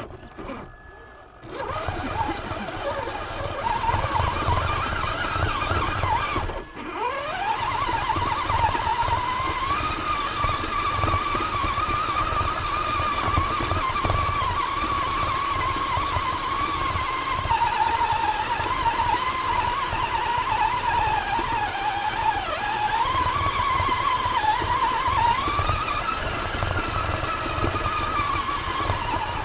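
RC rock crawler's brushed electric motor and gearbox whining, the pitch rising and falling as the throttle changes, over a low rumble of the chassis and tyres rolling over rough ground beneath the onboard camera. The sound starts about a second and a half in and breaks off for a moment about seven seconds in.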